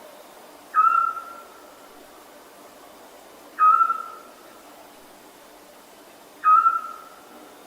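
An owl calling three times, evenly about three seconds apart. Each call is a single whistled note that steps up briefly at the start, then holds one steady pitch and trails off, over a faint steady background hiss.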